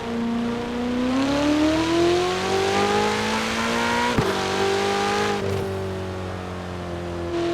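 2019 Ferrari 488 Pista's twin-turbo V8 accelerating, its note rising steadily. It drops sharply with a quick upshift about four seconds in, then pulls on more steadily and eases slightly toward the end.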